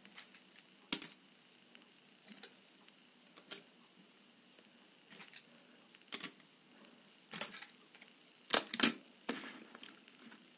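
Small toy cars being set down one after another on a wooden table: scattered light clicks and knocks, the loudest two in quick succession late on.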